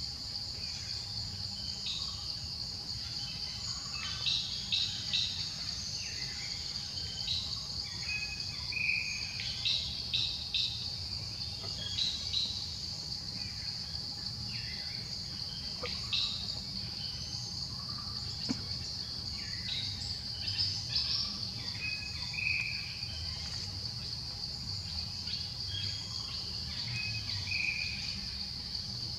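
Forest ambience: a steady high-pitched insect drone, with short bird chirps coming every few seconds over it and a low rumble underneath.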